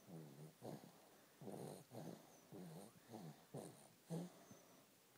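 Two-month-old baby snoring in her sleep: a quick run of about eight short, pitched snores, some in close pairs.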